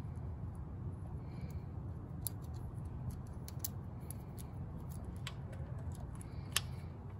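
Scattered light clicks and ticks of hand work on the transmission pressure switches, with one sharper click about six and a half seconds in, over a steady low rumble.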